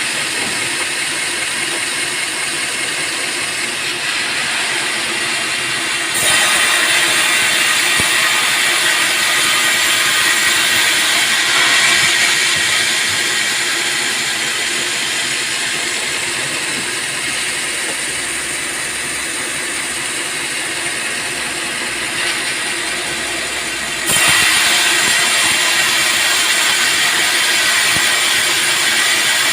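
Band sawmill running and cutting through a teak log: a steady, loud, noisy whir with a strong hiss. It gets suddenly louder about six seconds in and again near the end.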